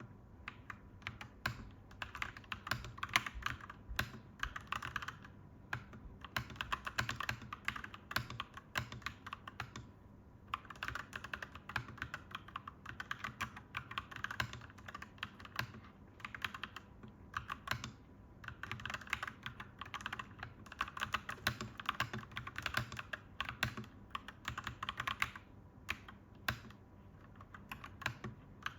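Clacky mechanical keyboard being typed on steadily, fast runs of keystrokes broken by brief pauses every few seconds.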